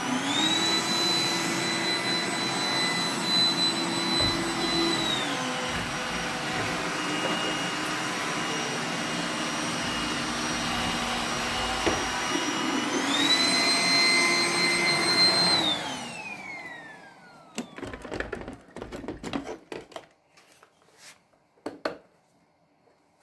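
Roomba 980 robot vacuum running, its motor whine stepping up in pitch twice and dropping back, then winding down and stopping about two-thirds of the way through. Scattered light clicks and knocks follow.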